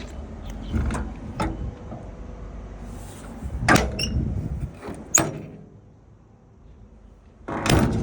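Sharp metal clanks and knocks from an excavator, about six in all, over a low engine rumble that fades for a couple of seconds before the last clank.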